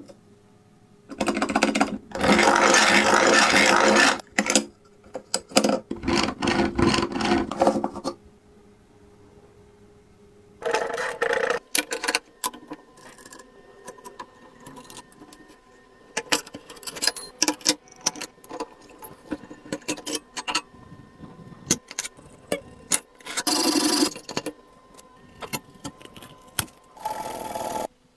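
Handling and working an old hand coffee grinder: loud scraping passes and many sharp clicks and knocks of metal and wood parts, in irregular spells.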